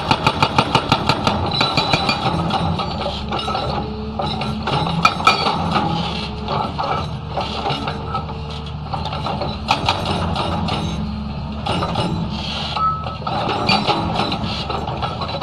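Hydraulic rock breaker on a Hyundai excavator hammering in rapid, even blows, about seven a second, until about a second in. After that the excavator's diesel engine runs on steadily with scattered metallic clanks.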